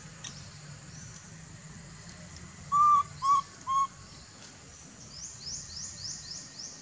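A baby macaque gives three short, clear coo calls in quick succession, about half a second apart, calling for its mother. Near the end, about five faint high rising chirps follow.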